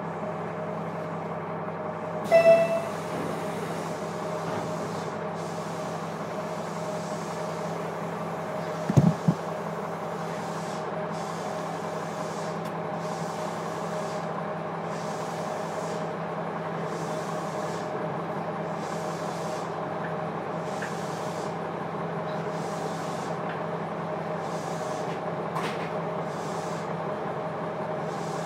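Engine of a KiHa 200 diesel railcar running steadily, heard from the seat above it inside the car with the windows shut. A short, loud tone sounds about two seconds in, and a heavy low thump comes about nine seconds in.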